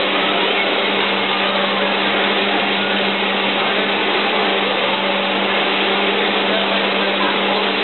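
Steady mechanical whir with a constant low hum from a motor-driven machine running without a break.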